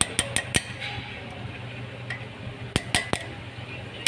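Sharp metallic clinks of metal tools and parts against a four-piston brake caliper while the pad retaining pin is being worked. There are four quick clinks at the start and three more near the end.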